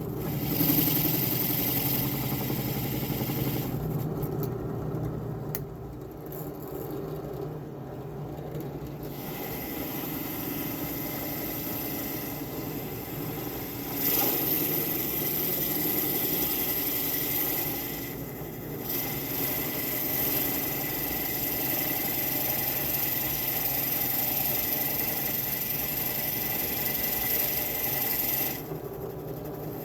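Wood being rubbed and scraped over a steady machine hum, the sound changing abruptly several times.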